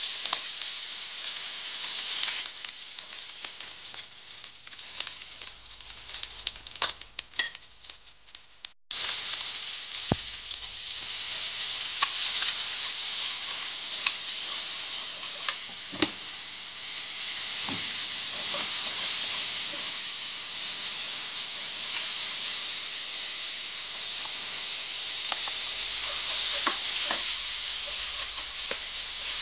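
Hot oil sizzling in a wok as pork belly pieces fry and are lifted out. After a short dropout about nine seconds in, sliced onion sizzles steadily in the oil, stirred with a wooden spatula that taps and scrapes the pan now and then.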